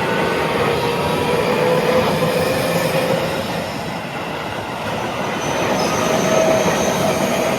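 Seibu Railway 30000 series electric commuter train passing: a steady rush of wheels on rail with thin whining tones that drift slowly in pitch, swelling twice.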